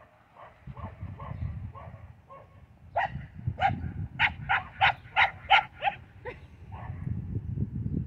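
A young Australian cattle dog/border collie mix barking repeatedly in a quick series at livestock. A run of softer barks is followed, about three seconds in, by about ten louder ones at roughly three a second, which then tail off.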